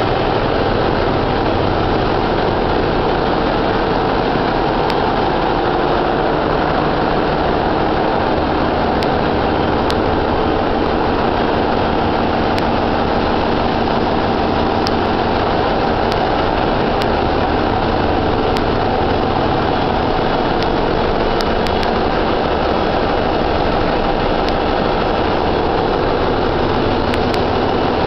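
Ship's engine room with its diesel engines and machinery running: a loud, steady, unchanging drone.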